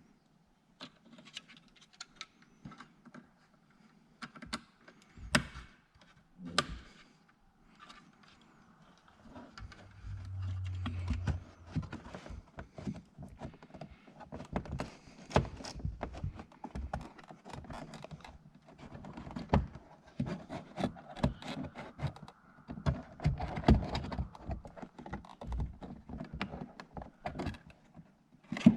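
Repeated clicks, knocks and rattles of tools and car trim parts being handled and fitted during reassembly of the car's interior, with a brief low hum about ten seconds in.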